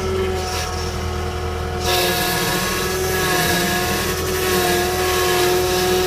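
John Deere 318 skid steer's diesel engine running steadily, heard from the cab, with a steady whine over the drone; it gets louder about two seconds in.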